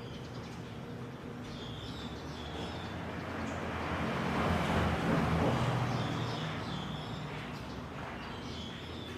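Outdoor ambience: a passing vehicle's noise swells to its loudest about halfway through and fades, with small birds chirping in short high calls before and after it.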